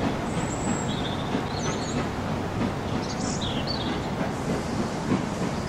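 Railway coaches rolling steadily across a stone bridge, a continuous low rumble of wheels on track. A few short bird chirps sound over it in the first half.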